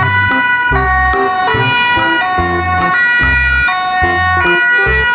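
Background music: a bright synth melody stepping quickly from note to note over a repeating bass line.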